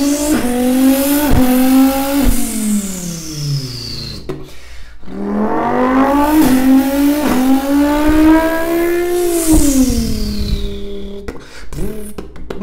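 A man's vocal imitation of a twin-turbo V10 Dodge Viper engine, sung into a shower head as a microphone. The pitch rises in two long revs, each dropping back at the end, and each is followed by a high, falling hiss.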